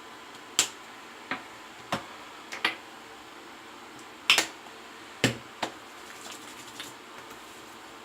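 Sharp clicks and knocks at irregular intervals, about seven in all, the loudest about four seconds in: hard objects being handled and set down.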